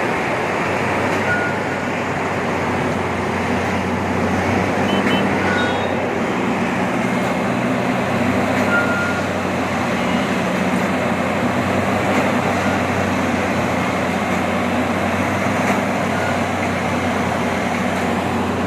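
Heavy diesel machinery running steadily with a constant low engine hum and mechanical noise, with a few short high chirps here and there.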